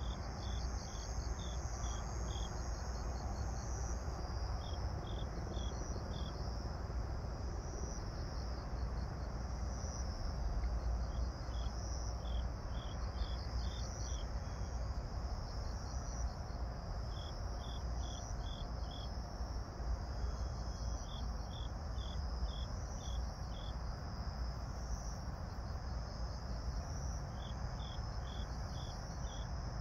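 Crickets and other grass insects calling: one chirps in quick runs of four to six notes every few seconds over a steady, higher-pitched trill of others. A steady low rumble runs underneath.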